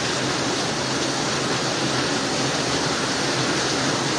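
Fast-flowing floodwater rushing through a street, a steady, even roar of moving water.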